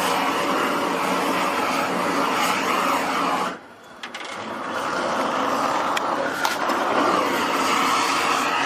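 Hose-fed gas torch running with a steady hiss as it heats a copper pot for tinning. About three and a half seconds in the sound drops away briefly, then builds back up and holds.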